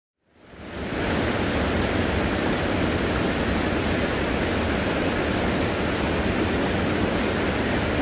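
Rushing whitewater pouring over rocks: a steady, full rush of water that fades in during the first second.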